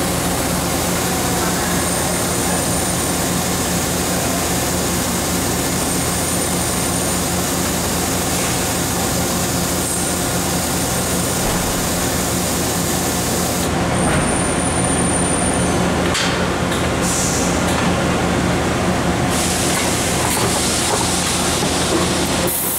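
Centerless guidewire grinder running in production: a steady mechanical hum and hiss, with a few short high whistles now and then.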